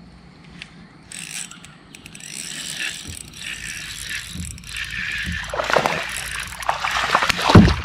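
Fishing reel being cranked while a hooked largemouth bass is reeled in. The mechanical noise builds from about halfway through, and a loud knock comes near the end.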